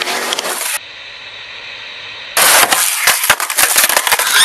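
A skateboard hitting concrete in a fall. About two and a half seconds in it starts suddenly and loudly: a rapid run of knocks and clatter from the deck and wheels over a rough rolling rasp.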